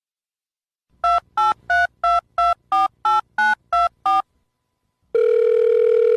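Telephone keypad tones: ten quick beeps as a number is dialled. A steady ringing tone, as the call connects to the other end, starts about five seconds in.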